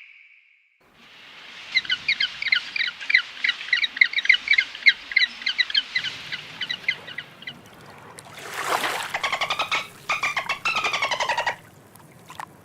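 A bird chirping rapidly, several short chirps a second for about six seconds. Then, after a short rush of noise, a louder call made of fast pulses, falling slightly in pitch, lasts about two seconds.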